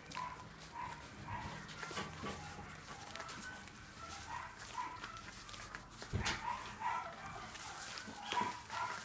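Shiba Inu and poodle puppies at play, giving short high whimpering yips every half second or so, with light scuffling knocks and a louder thump about six seconds in.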